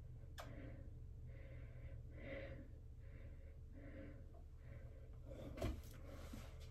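Faint, regular breathing, about one breath a second, with a light click about half a second in and a soft knock of handling noise about five and a half seconds in.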